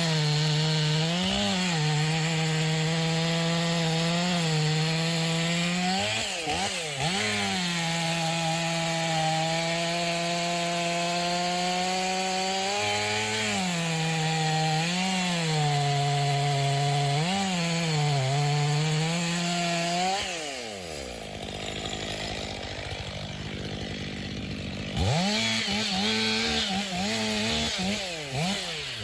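Chainsaw running at full throttle through a cut, its pitch dipping briefly several times. About two-thirds of the way through, the throttle is let off and the engine falls toward idle for a few seconds, then it revs up again near the end.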